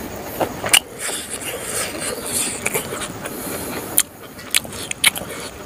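Close-miked chewing and lip-smacking of a mouthful of rice and smoked pork, with several sharp wet mouth clicks, one about four seconds in.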